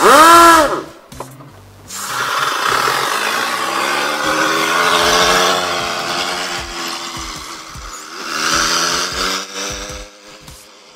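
Pneumatic turbine motor of a liquid-nitrogen-powered Fiat 126p, run on expanding nitrogen gas fed through the main gas valve: a short loud hiss as the valve opens, then a long hiss with a wavering whine as the car pulls away, swelling again near the end.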